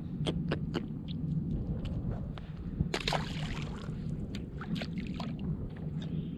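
Water sloshing and splashing around an inflatable paddleboard, with a brief louder splash about three seconds in and scattered small clicks and knocks.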